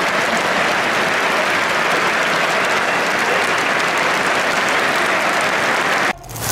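Football stadium crowd applauding steadily; the sound cuts off suddenly near the end.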